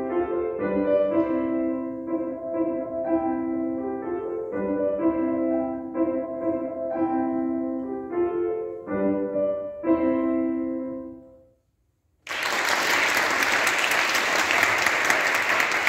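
Grand piano playing a short piece with a steady rhythm, ending on a chord that rings out and dies away about eleven seconds in. After a brief silence, applause starts and continues to the end.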